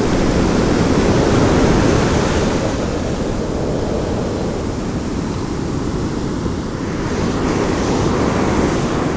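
Ocean surf: a steady, low rushing of moving water with wind on the microphone. It turns brighter and hissier about seven seconds in.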